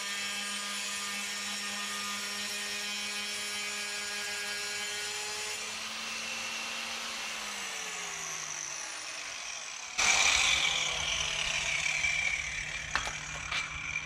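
Rubi TC-125 electric tile saw running at steady speed as it is pushed along the Slim Cutter rail, cutting a large porcelain tile. About two-thirds of the way through the first half its pitch falls as the motor winds down. About ten seconds in, a sudden louder noise with a falling whine and two sharp clicks takes over.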